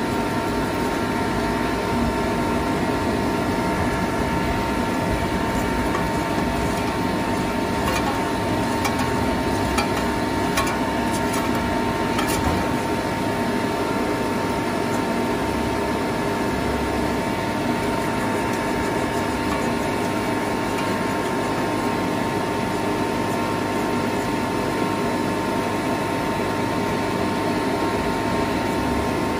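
Steady drone of running machinery with a constant whine near 1 kHz, unchanging throughout, and a few faint light clicks about eight to twelve seconds in.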